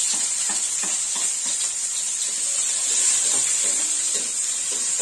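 Chopped shallots, garlic and chillies sizzling loudly and steadily in hot oil in a wok, with light crackling and the scrape of a spatula stirring them.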